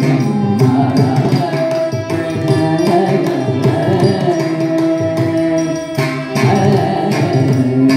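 Carnatic classical dance music: a melody with long held notes over steady hand-drum beats.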